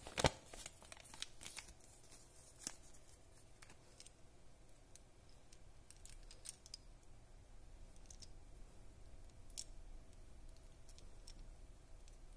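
Quiet handling of a folded paper toy leaflet and small plastic Kinder Joy toy pieces: a sharp crackle about a quarter second in, then scattered light clicks and taps.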